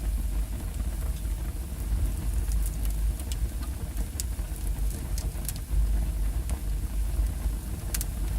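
Wood fire burning in a fireplace: a steady low rumble of flames with scattered sharp crackles and pops from the burning logs, including a quick double pop near the end.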